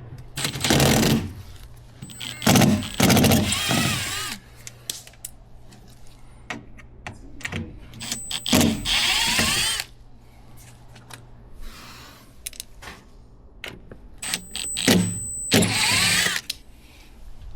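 Power drill or driver run in about four short bursts of a second or two each, its motor whining up and down in pitch, typical of driving screws in or out.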